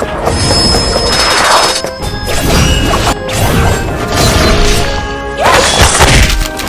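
Background music with dubbed fight sound effects: several hard hits and sweeping rushes, ending in a loud crash a little after five seconds in.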